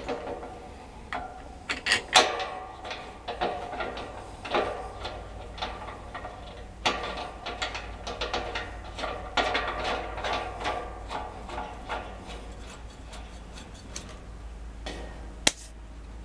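Hand-threaded tilt-adjustment knob being screwed into the side of a DeWalt drum fan, with irregular clicks, knocks and scraping as the knob turns and the fan housing is handled. A sharp click comes near the end.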